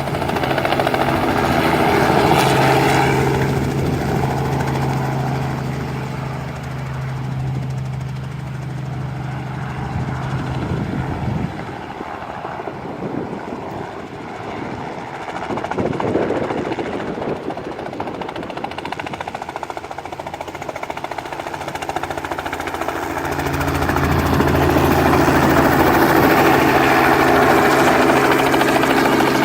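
Helicopter rotor and engine running overhead with a steady beating drone; it fades about a third of the way in and grows louder again near the end.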